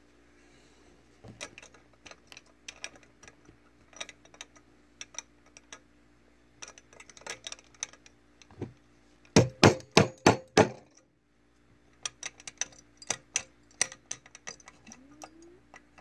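Small metal clicks and clinks as a brass belt buckle and punch are handled in a bench vise. About nine seconds in comes a quick run of about seven loud hammer strikes on metal, each with a brief ring, as the buckle's press fitting is restaked.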